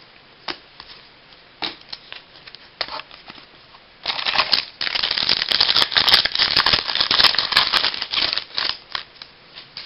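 Trading cards being handled and slid against one another: a few light clicks and taps, then about four seconds of dense rustling and crackling from about four seconds in.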